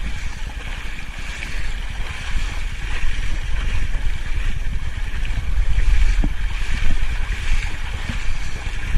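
Wind rumbling on the microphone, with a steady high hiss over it.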